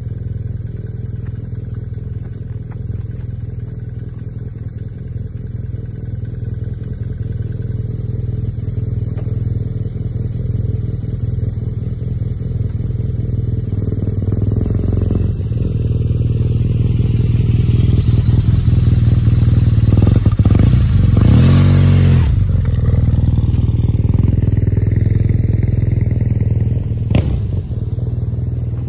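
BMW R nineT motorcycle's boxer-twin engine running at low speed, growing louder as the bike comes closer and loudest about two-thirds of the way through. A single sharp click sounds near the end.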